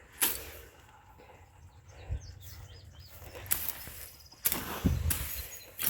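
A machete chopping through weeds and brush: several sharp cutting strikes, one right at the start and a quicker run of them in the last couple of seconds. Faint bird chirps can be heard in between.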